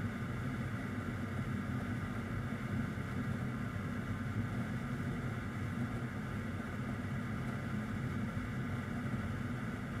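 Steady mechanical hum that runs without change, with a low drone and a fainter higher hiss.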